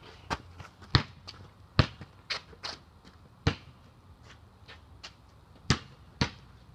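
Basketball being bounced, a string of irregular, sharp thuds, some loud and some faint, with a quieter lull in the middle.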